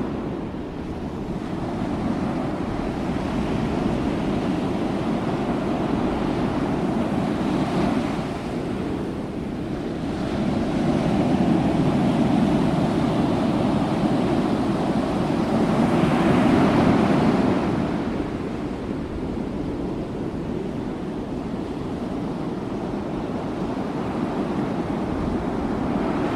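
Ocean surf washing, a steady rush of breaking waves with wind on the microphone, swelling louder in slow surges about halfway through.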